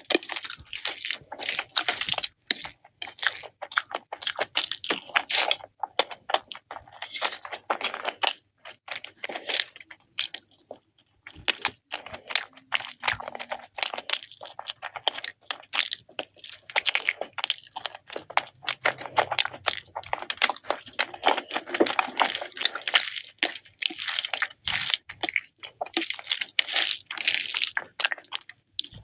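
A person biting and chewing crunchy food close to the microphone: a dense, irregular run of sharp crunches and crackles, with a couple of short pauses.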